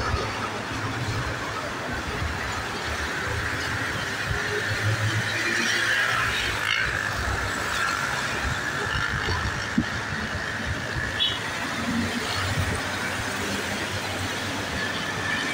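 Wind buffeting the microphone in irregular gusts over a steady rushing noise.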